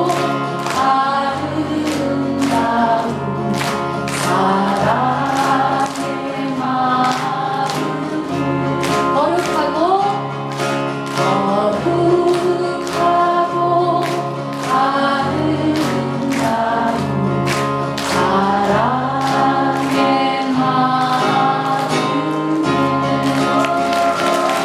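Live folk song performance: singing with vibrato over an instrumental accompaniment, with steady bass notes and a regular beat of about two strokes a second.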